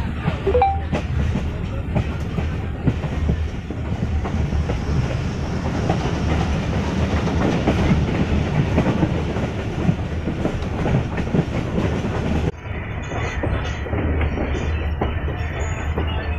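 Passenger train running along the line, heard from a carriage window: a steady rumble of the wheels with a dense clatter of sharp clicks as they run over the rail joints. About twelve seconds in, the sound turns abruptly duller.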